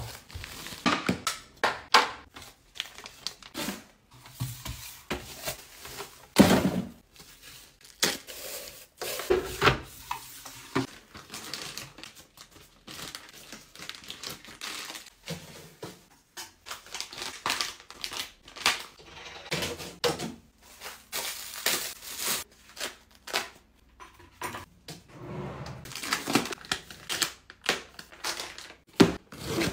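Plastic packaging crinkling and rustling as wrapped household goods are handled, broken by frequent sharp taps and knocks as items are set down on shelves, with the loudest knock about six seconds in.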